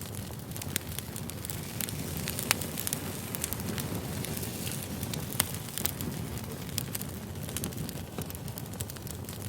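Firewood burning: a steady low rumble of flames with irregular sharp crackles and pops, two louder pops about two and a half and five and a half seconds in.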